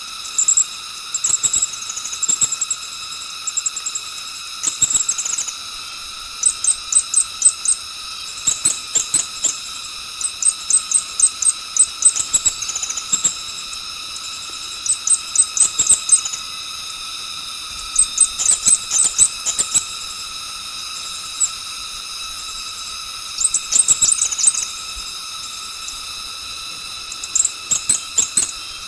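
Birds calling in quick runs of short, high-pitched chirps, several a second, with pauses between runs, over a steady high-pitched drone like an insect chorus.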